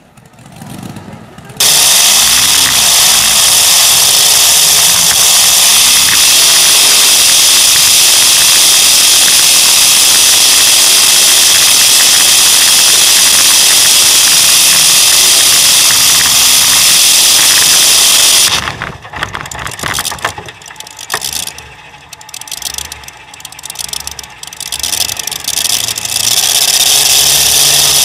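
Pulling tractor's engine at full throttle under load, so close to the microphone that the sound is overloaded and distorted. About 18 seconds in the throttle is cut and the engine runs on at lower revs, unevenly rising and falling.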